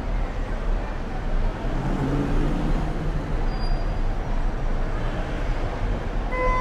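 Busy street ambience: steady traffic noise with a low rumble, and a vehicle's engine note swelling about two seconds in. A short horn-like tone sounds just before the end.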